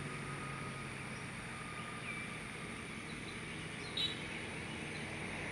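Steady low mechanical hum with background noise, with a faint high chirp about two seconds in and a brief, slightly louder cluster of high chirps about four seconds in.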